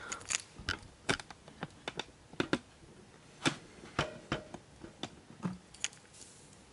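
Irregular light clicks and taps of hands handling cables and plastic parts inside a PC case, a dozen or so scattered sharp ticks with no rhythm.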